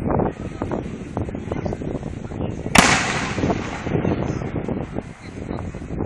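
Fireworks display: one loud aerial shell burst about three seconds in, its boom echoing away, amid smaller sharp pops and crackles.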